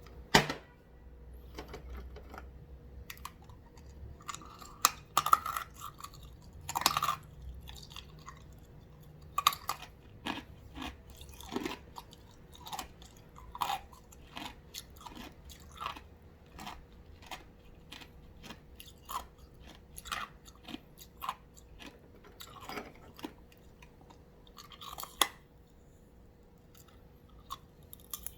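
Ice being bitten and chewed close to the microphone: irregular sharp crunches, with a few louder bites among many smaller cracks.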